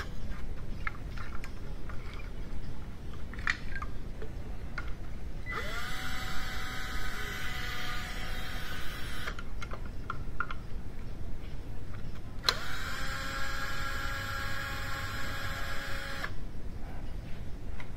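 A cordless drill spinning a socket runs twice, a few seconds each time, winding up quickly and then holding a steady whine, as it removes fasteners during an engine teardown. Light clicks and knocks of tool and parts handling come between the runs.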